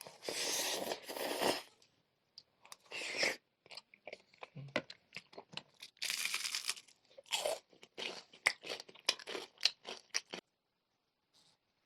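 Close-miked crunching and chewing of crispy fried chicken pieces: long crunchy bites at first, then a run of short sharp crunches that stops about ten seconds in.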